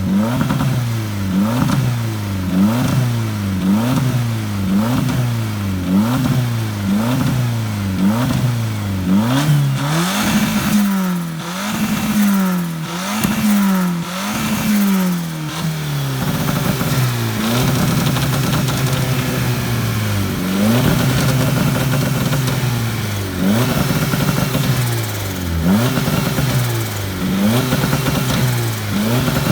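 Turbocharged Toyota 1NZ-FE four-cylinder engine in a Lada being revved in quick repeated throttle blips, the pitch rising and dropping back about once a second, with a longer held rev about halfway through.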